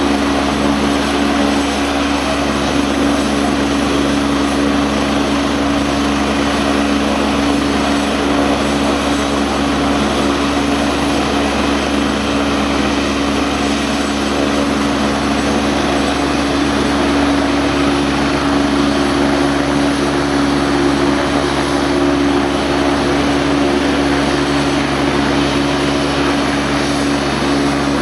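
RNZAF AgustaWestland A109 helicopter running on the ground, its twin turbine engines and rotor making a steady low hum over a rushing whoosh that holds unchanged, as it waits to take off.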